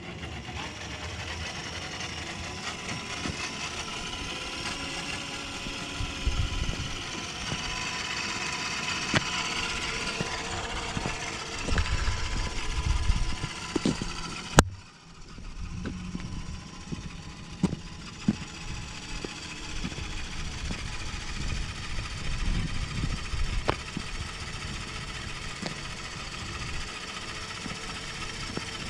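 Beier USM-RC-3 sound module on an RC truck playing a simulated truck engine sound through its small speaker, running steadily and swelling louder a few times. A single sharp click about halfway through.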